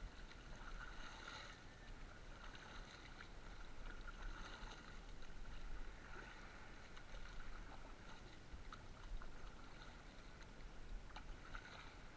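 Water splashing and lapping around a small paddled outrigger canoe, with irregular paddle strokes and a few small knocks.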